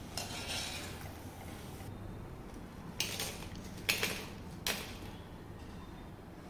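Frying oil sizzling for the first two seconds, then three sharp metal clinks about a second apart as a wire strainer taps fried cabbage manchurian balls out onto a brass plate.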